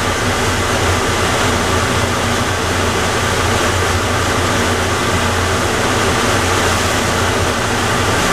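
Plane Train automated people mover running: a steady rumble with a low hum that holds level throughout.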